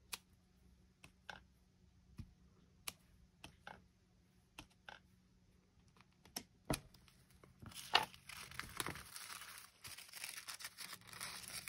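Wooden rubber stamp knocked against paper in about ten light taps, then paper tearing for the last four seconds or so.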